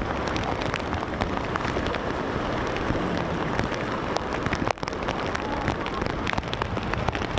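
Steady heavy rain, with many sharp drop ticks close to the microphone. The sound dips briefly about halfway through.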